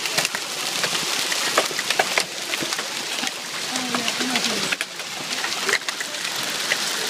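Hailstorm: a dense, steady hiss of falling hail with many sharp ticks of hailstones striking the ground and house.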